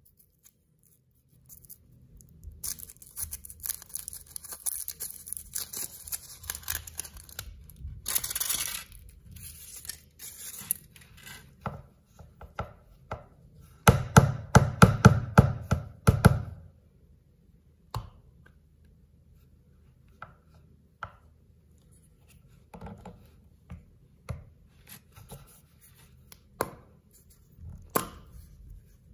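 A Kinder Surprise egg being unwrapped, its foil crinkling and tearing for several seconds. Then its chocolate shell is cracked apart in a loud run of quick snaps lasting about two seconds, the loudest part. Scattered small clicks and taps near the end, from handling the plastic toy capsule.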